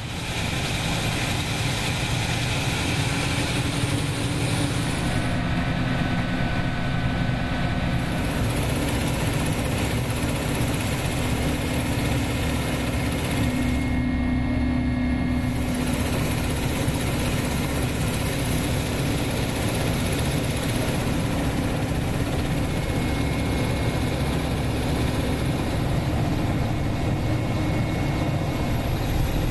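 Mi-8 helicopter's twin turbine engines and main rotor running steadily, a heavy low hum under a thin high turbine whine, heard from on board.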